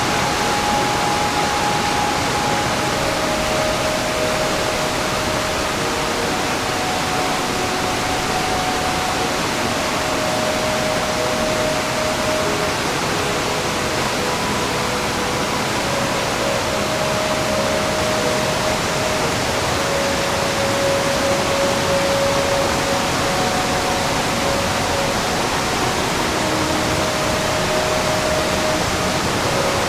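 Mountain stream rushing steadily over rocks, a continuous even wash of water noise.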